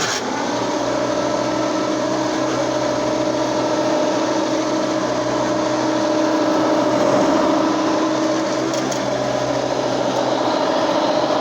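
Hoover Elite 2 bagged vacuum cleaner running steadily, a constant motor whine over a rushing airflow, as it vacuums up a test mess.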